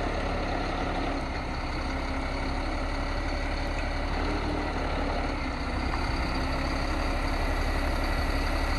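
Caterpillar C7 diesel engine of a Kenworth T300 running steadily with the PTO engaged to drive the crane's hydraulics. It grows a little louder about halfway through.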